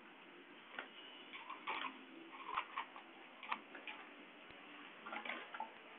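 Faint, irregular light clicks and taps, some coming in small clusters.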